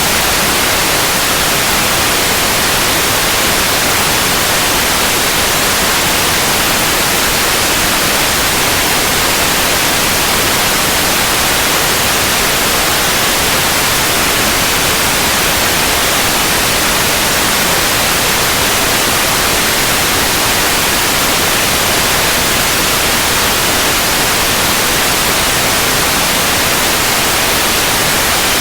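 Steady, unbroken white noise: an even hiss across the whole range, not changing at all.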